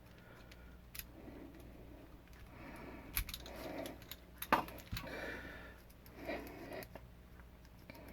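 A screwdriver backing out small screws: soft scraping as the screws turn, with a few sharp light metallic clicks about one, three and four and a half seconds in.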